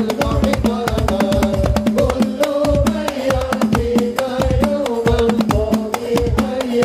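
Sholawat music: fast, steady hand-drum percussion with a sung or played melody holding long, wavering notes over it.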